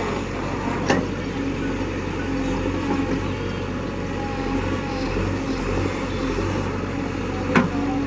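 JCB 3DX backhoe loader's diesel engine running steadily while the backhoe digs, with two sharp knocks, one about a second in and one near the end.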